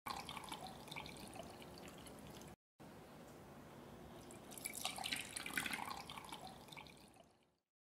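Liquid poured into a cooking pot, splashing and trickling: a first pour, a short break about two and a half seconds in, then milk poured from a measuring cup. The second pour is loudest in the middle and fades out near the end.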